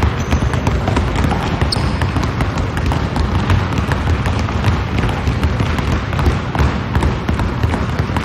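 Several basketballs being dribbled at once on a hardwood gym floor: a dense, uneven patter of many overlapping bounces.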